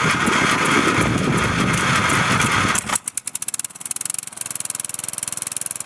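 Riding lawn mower's electric starter cranking the engine for about three seconds, then the engine catches and runs with a fast, even beat. It is a first start after the mower sat since autumn, with a freshly cleaned carburetor float bowl.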